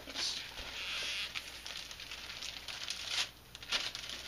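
Clear plastic wrapping being torn and pulled off a plaque, crinkling. A sharp click at the very start, a long rustle over the first second and a half, then a couple of shorter crinkles near the end.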